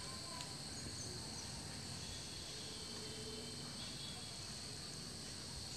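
Faint outdoor ambience with a steady high-pitched insect drone.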